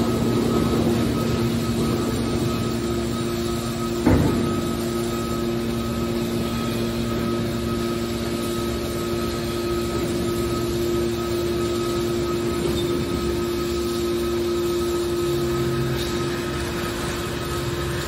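Hydraulic car scrap baler running: a steady, constant-pitch hum from its motor and pump while the press lid is lowered by its hydraulic cylinders, with one sharp metal clank about four seconds in.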